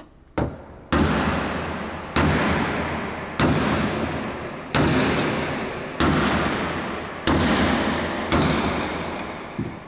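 Hammer blows on the steel body of a VW Golf Mk2 shell: about seven heavy strikes, roughly one every 1.3 seconds, each ringing and dying away over about a second. Brute-force hammering to knock out a stuck part of the body.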